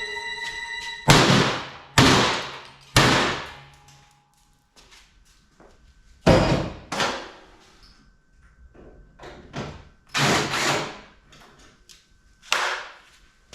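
Heavy metal clangs from a PTAC air-conditioner unit being taken apart: about eight loud, irregular strikes, some in quick pairs, each ringing out briefly.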